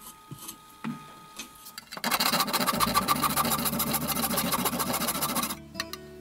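Backsaw cutting through oak, played back at four times speed, so the strokes run together into a rapid, machine-like rasping. It starts about two seconds in and stops shortly before the end; a few light knocks come before it as the saw is set on the wood.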